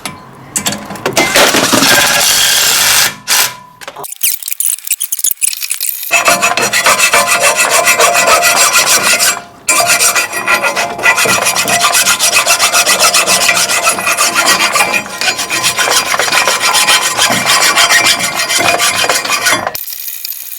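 Brake caliper parts being scrubbed and scraped clean by hand: hard, rapid rubbing strokes with two short pauses, stopping just before the end.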